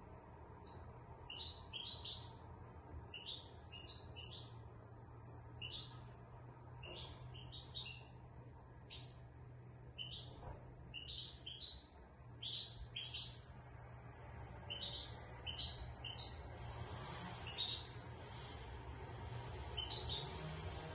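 European goldfinch of the large 'major' race singing: scattered bursts of short, high twittering and chirping notes, over a steady low hum.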